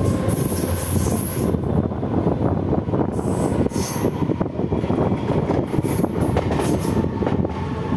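Mumbai suburban EMU local train running along the track, heard from the open doorway of a coach: a steady rumble and rattle of wheels on rails. A very high-pitched wheel squeal comes and goes about three times.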